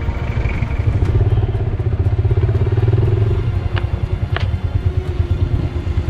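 Motorcycle engine idling with a steady rapid chug. Two sharp clicks come about four seconds in.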